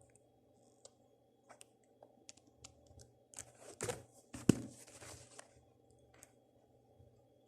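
Scattered small clicks and soft rustles from handling plastic toy figure parts and packaging, with one sharper click about halfway through.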